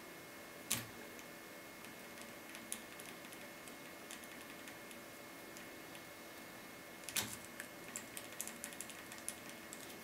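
Faint metallic clicks of a lock pick and tension wrench working the five pins of a brass Thirard Surveyor pin-tumbler euro cylinder during lockpicking. There is a sharper click about a second in, another around seven seconds, then a quick run of small ticks.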